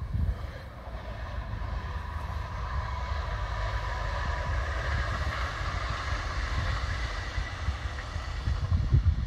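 Arriva Stadler WINK multiple unit running past, with a steady whine and running noise that swell to their loudest around the middle as the train passes and then ease off. Wind buffets the microphone throughout, with the strongest gusts at the start and just before the end.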